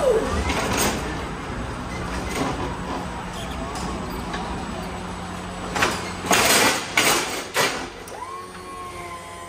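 Forklift loading pallets: a steady low hum, a run of loud clanks about six to eight seconds in, then a steady whine near the end.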